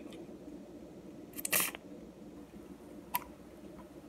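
Handling noises from injecting seasoning liquid into potatoes with a needle injector: a short noisy rustle-squirt about a second and a half in and a single sharp click a little after three seconds, over a steady low hum.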